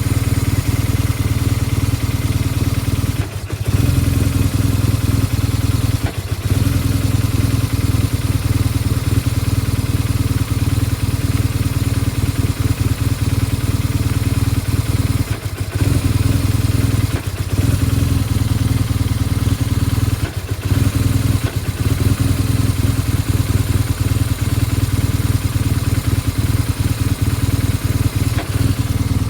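BMW R1200GSA's flat-twin engine idling roughly at full operating temperature, dropping out briefly about five times as it stumbles. This is the hot rough idle that leads to stalling, which new plugs and coils, a valve check and a throttle-body sync have not cured.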